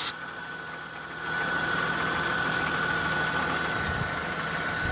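The Holden VT's LS1 V8 being cranked over by its starter on a first start attempt: a steady whine with a low churn underneath, getting louder about a second in and then holding even.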